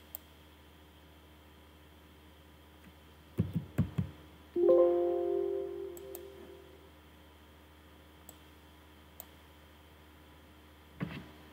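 A computer alert chime, several tones sounding together and fading over about two seconds, as a SolidWorks warning dialog pops up to reject an invalid dimension change. Just before it come three or four dull knocks, with faint mouse clicks scattered through and more knocks near the end.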